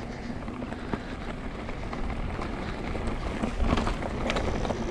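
Electric mountain bike rolling down a dirt trail: steady tyre and wind noise, with clatter and knocks from the bike over rough ground, busiest about three and a half to four and a half seconds in.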